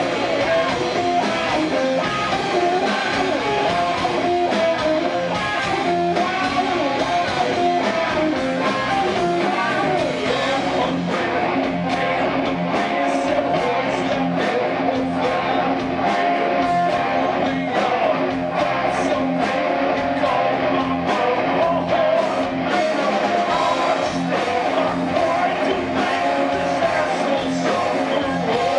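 A heavy metal band playing live and amplified: electric guitars and bass over a drum kit, with singing.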